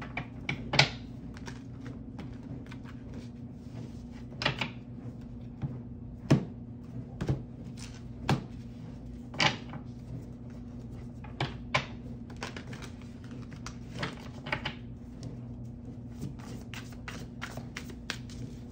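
Tarot cards being handled on a table: irregular taps, snaps and flicks as cards are shuffled and laid down, a few louder than the rest, over a steady low hum.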